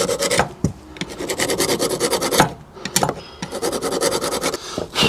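Metal hand file rasping across a steel rear brake caliper carrier to clean gunk off it, in several scraping strokes separated by short pauses.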